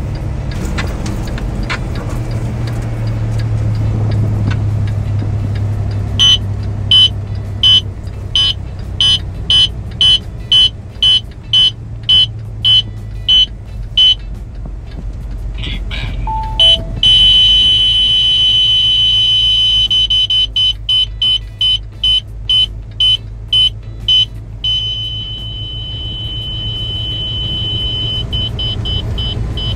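Semi truck cab with the steady rumble of engine and road noise; starting about six seconds in, a high-pitched in-cab warning alarm beeps about one and a half times a second, goes to a held tone twice, and beeps faster in between. About halfway through there is a short two-note falling chime.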